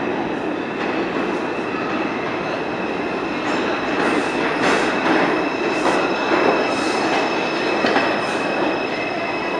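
An R142 subway train pulls into the station and slows: a dense rumble with a steady high whine. From about three and a half seconds in, a run of wheel clicks joins it, getting louder as the cars pass.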